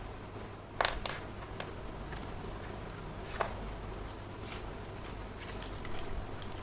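Small toy kitchen set pieces being handled and unpacked: a few scattered light clicks and taps, the sharpest about a second in, over a steady low hum.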